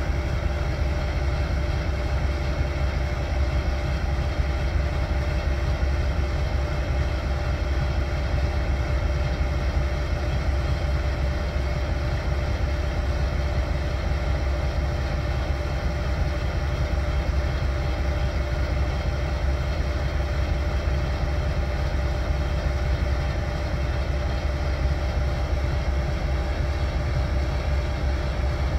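Union Pacific C44ACM diesel-electric locomotive idling steadily: a deep, unchanging rumble with a constant whine above it.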